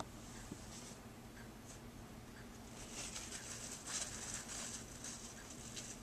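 Faint scratchy rustling for a couple of seconds from about halfway in, over a low steady hum.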